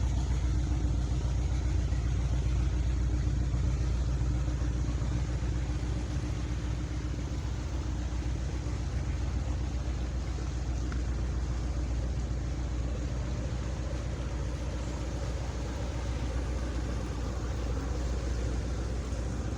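Passing boat's engine: a loud, steady low rumble with a hum, easing off a little after about six seconds.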